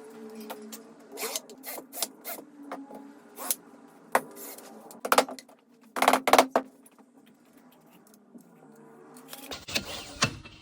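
Hand-tool work on a fly-screen frame: an irregular series of sharp clicks and knocks, a close cluster of the loudest about six seconds in, over a faint steady hum.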